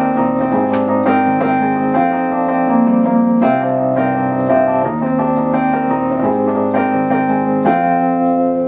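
Wurlitzer EP200 electric piano playing an instrumental passage of sustained chords that change every second or so.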